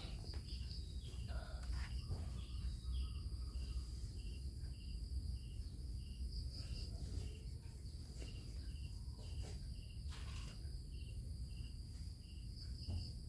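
Faint insect chirping, a short chirp repeating about three times a second, over a low steady rumble, with a few light handling knocks.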